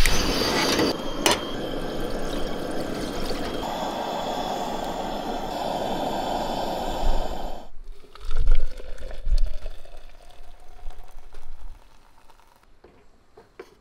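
Coffee being poured into a cup: a steady pour for about eight seconds that gets fuller partway through and stops suddenly, followed by a few dull knocks.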